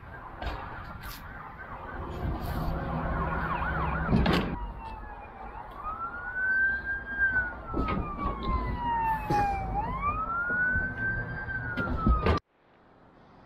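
An emergency-vehicle siren wailing: its pitch rises, falls slowly, then rises again, from about halfway through until it cuts off suddenly near the end. Before it, tires thump as they are bumped on the ground to knock water out of them, the loudest knock about four seconds in.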